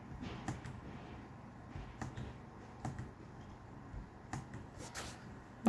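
About half a dozen faint, scattered clicks from a computer keyboard as spaces are typed between numbers in on-screen text, over low room noise.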